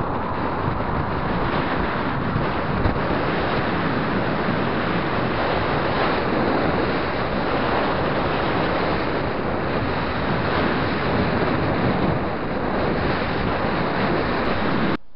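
Steady, loud wind rushing over an action camera's microphone as a road bike is ridden at speed along the road. It cuts off abruptly near the end.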